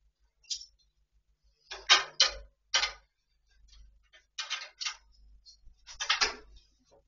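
Several short scratchy rubbing and scraping sounds, in bunches a second or two apart, from a snooker player handling his cue between shots.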